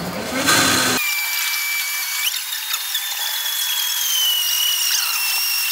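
7-Eleven self-serve smoothie machine blending a frozen smoothie in its cup: a thin, high motor whine that jumps up in pitch a little over two seconds in, then slowly sags as it works, with a few light clicks.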